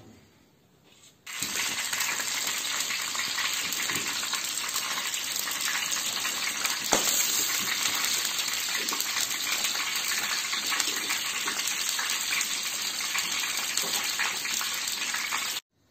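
Meat boiling in a large wok of dark liquid: a steady bubbling hiss with fine crackle that starts suddenly about a second in and cuts off just before the end.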